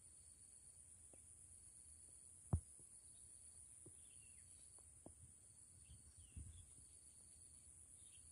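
Near silence: a steady high insect drone with a faint chirp repeating about once a second and a few brief bird calls, broken by one sharp click about two and a half seconds in.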